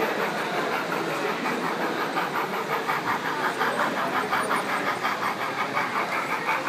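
Model steam locomotive running on a layout, with a rapid, even beat of about five a second over steady background noise.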